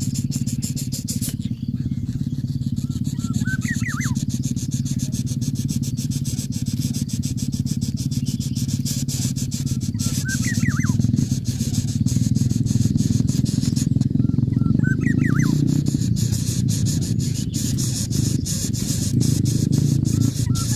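A steady low rumble, like a running engine, throughout, with a short chirping bird call repeating about every five or six seconds.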